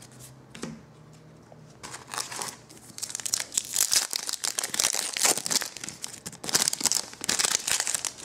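Foil trading-card pack wrapper being torn open and crinkled by hand. It starts with a few faint clicks, then about two seconds in turns into a dense crackle that comes and goes in bursts.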